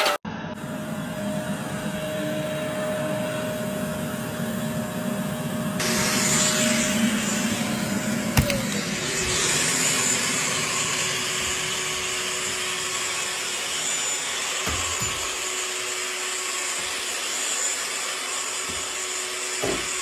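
Vacuum cleaner running: a steady whir with a held hum that drops lower about eight seconds in.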